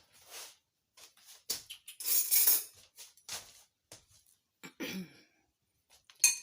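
Kitchen handling noises as seasoned chicken is put into pita pockets: a run of short scrapes, rustles and taps, the longest a hissing scrape about two seconds in, and a sharp click near the end.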